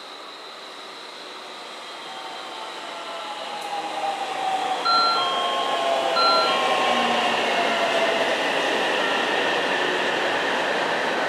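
A JR Central 313 series electric train pulls into the station and brakes, growing louder as it approaches, with a motor whine falling in pitch as it slows. Two short beeps about a second apart sound midway.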